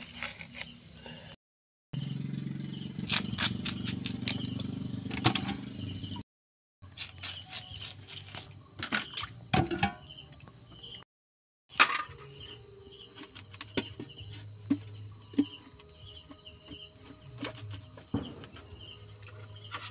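Scattered clicks, scrapes and knocks of purple yam (ube) being peeled with a knife and handled in a metal basin of water, over insects chirping steadily. The sound drops out briefly three times.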